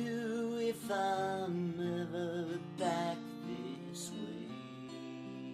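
Acoustic guitar accompanying a singer who holds long, wavering notes on the song's closing line; for the last second only the guitar rings on.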